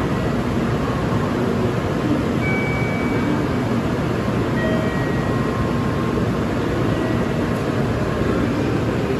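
Steady rumble of a Shinkansen station platform with a train standing alongside, with a few faint short high tones now and then.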